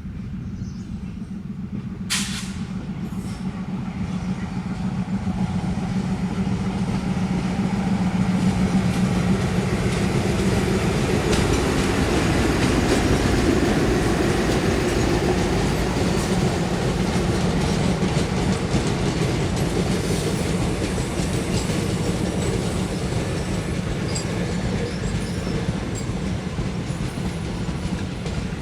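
WDM3A ALCO diesel locomotive and its passenger coaches rolling past while slowing for a halt: the engine's steady low hum, a short sharp hiss about two seconds in (the ALCO's 'sneeze'), then the rumble and clickety-clack of the wheels building to its loudest midway, with faint wheel squeal later.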